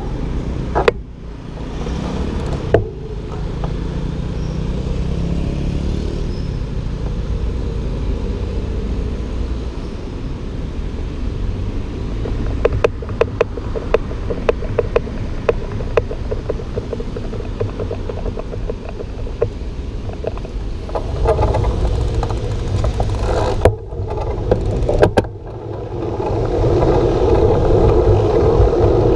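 Passing road traffic, cars and a bus, with a steady low rumble. Two sharp clicks come a second or so apart near the end, then louder wind noise on the microphone as the bicycle moves off.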